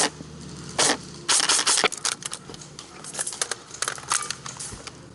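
Airsoft guns firing: several sharp shots in the first two seconds, then a patter of fainter shots and clicks.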